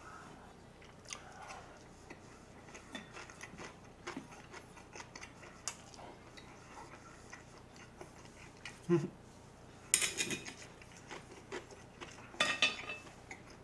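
Faint chewing with scattered small clicks, then wooden chopsticks clicking and scraping against a plate in a few short clusters over the last few seconds.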